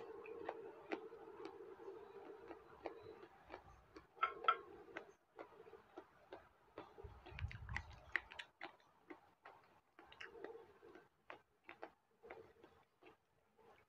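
A person chewing sausage close to a clip-on microphone: a string of small, irregular mouth clicks and smacks, with a brief low rumble about seven seconds in.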